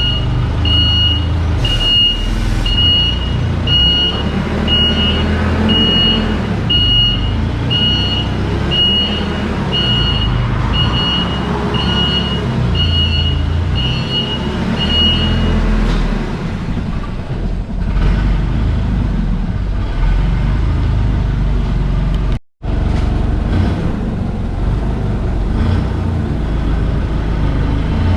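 A heavy machine's engine running with its reversing alarm sounding a steady high beep about once a second; the beeping stops about halfway through while the engine runs on, and the sound cuts out for a moment near the end.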